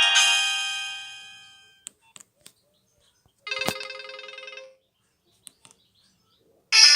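Nokia 1200 ringtone ending, its chime-like notes ringing out and fading over about two seconds. A few faint clicks follow, then a brief tone about halfway. The next ringtone starts loudly just before the end.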